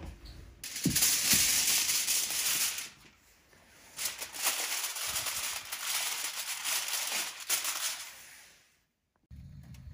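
Aluminium foil crinkling as a hand handles it and presses it down over a baking tray, in two bouts with a short pause about three seconds in.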